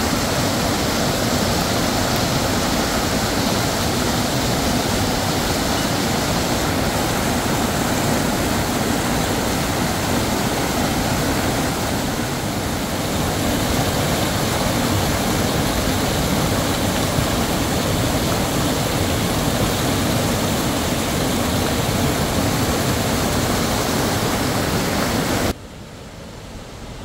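Loud, steady rush of a fast whitewater mountain stream tumbling over rocks. Near the end it cuts off suddenly to a much quieter outdoor background.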